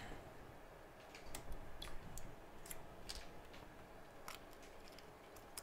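A handful of faint, scattered clicks and ticks as small metal parts and hand tools are handled inside an iPhone X during disassembly, with its components being disconnected to free the logic board.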